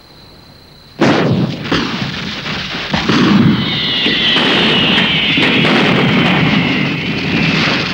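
A sudden loud blast about a second in, then a long run of rapid bangs and crackling with a high whistle falling slowly in pitch: the sound of a deliberate diversion being set off.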